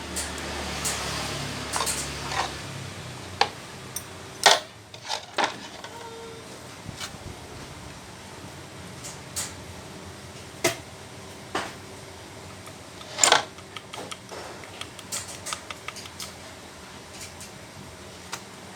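Metal parts and hand tools being handled on a workbench during repair of a jack hammer: scattered clinks and knocks at irregular intervals, two of them louder. A low hum stops about two and a half seconds in.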